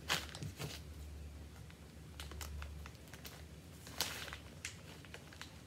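Plastic pack of grated coconut crinkling and rustling as it is handled, in short sharp bursts, the loudest about four seconds in, over a faint steady low hum.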